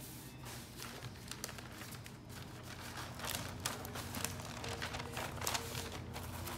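Quiet background music with the crackle of brown wrapping paper and cellophane flower sleeves being handled, the crinkling busier in the second half.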